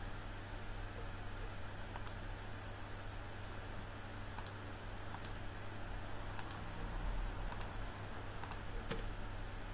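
Sparse, sharp clicks from a computer being operated, about seven spread unevenly over several seconds, over a steady low electrical hum and faint room hiss.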